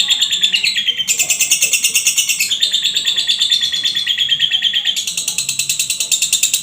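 Songbird singing in fast, machine-gun-like trills: runs of very rapid repeated high notes that shift to a new pitch every second or two. This is the rapid-fire 'tembakan' song used as a training (masteran) recording.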